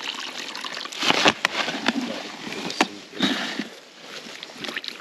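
Water splashing and sloshing in several short bursts, with a couple of sharp clicks or knocks.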